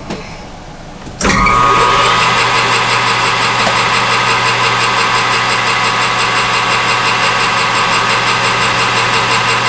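Metal lathe switched on about a second in, its chuck spinning up and then running at a steady speed with a steady whine.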